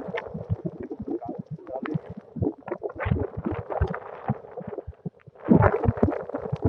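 Strong wind buffeting the microphone in irregular rumbling gusts, the strongest gust about five and a half seconds in.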